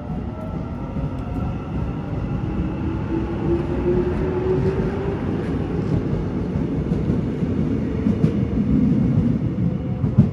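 Line 1 electric multiple-unit train running past the platform: a loud rumble of wheels on rail under a motor whine that rises in pitch, with a sharp knock near the end.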